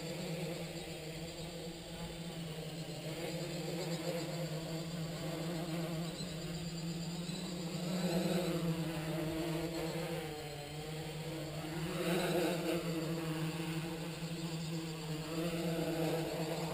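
Electric motors and propellers of a small MultiWii-controlled multirotor drone buzzing as it hovers low, the pitch wavering and swelling louder about eight and twelve seconds in. The owner says its PID settings need re-tuning.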